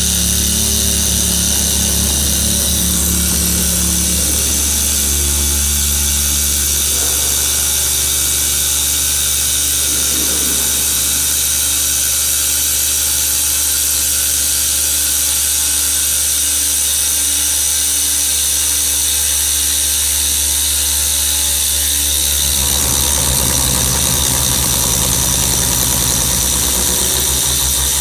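A 5-axis CNC router's 12 kW water-cooled spindle milling a granite block under a water-coolant spray: a steady machine whine and grinding of the cutter in stone. The sound shifts, growing fuller in its lower range, about 22 seconds in.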